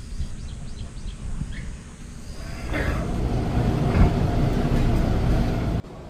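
Subway train rumbling, getting louder about three seconds in and cutting off abruptly just before the end.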